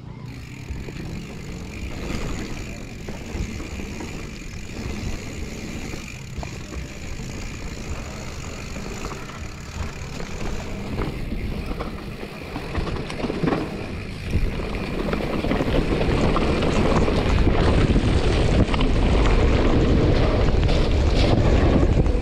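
Wind rushing over the microphone and knobby tyres rolling on a damp dirt trail as a 2021 Giant Trance X 29 3 full-suspension mountain bike descends, with clicks and knocks from the bike over bumps. It gets louder about two-thirds of the way through as the bike gains speed.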